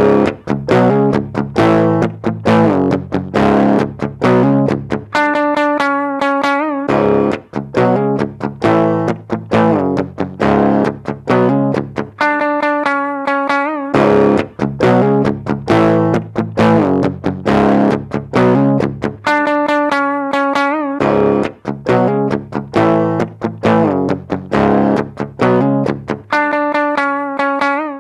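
Electric guitar played through a Marshall mini guitar amp with a distorted tone, picking a riff that starts over about every seven seconds.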